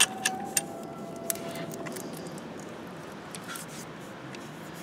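Sharp metallic clicks and clinks as a replacement starter motor is handled into place and its mounting bolt started by hand, several in the first second and a half, then only faint background noise.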